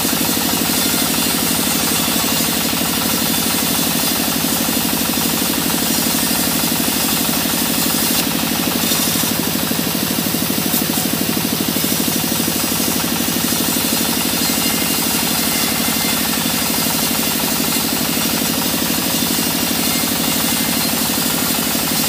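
Sawmill bandsaw running steadily while its blade cuts through mahogany timber: an even mechanical drone with a fast regular pulse and a hiss from the cut.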